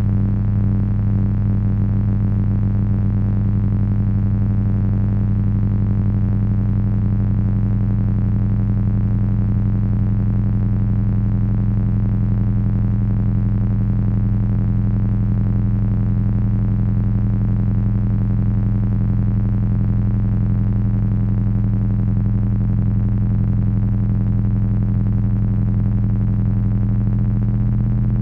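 Heavy electronic drone from three Frequency Analyzer v1 units controlled by an HP 200C audio oscillator: a loud, steady low hum with a dense buzz of overtones above it.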